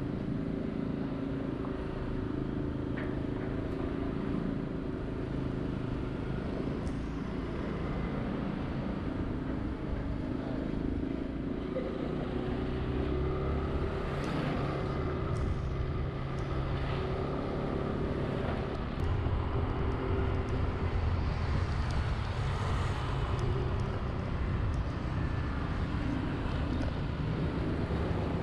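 Engine of a moving road vehicle running through city traffic, its pitch shifting as the speed changes, with a steady hum of road and traffic noise around it. It gets a little louder in the second half.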